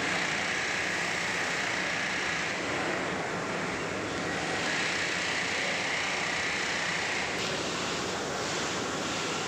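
Steady drone of workshop machinery running, with a high whine that carries through and no break or change in level.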